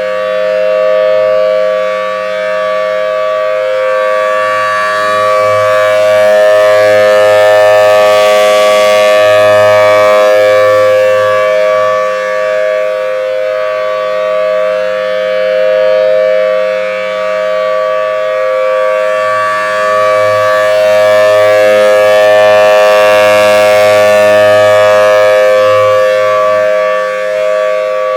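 Federal Signal Thunderbolt 1000T Series B outdoor warning siren sounding its steady alert signal, two close notes held without pitch change. The rotating siren head makes the sound swell and fade, peaking about every 14 seconds.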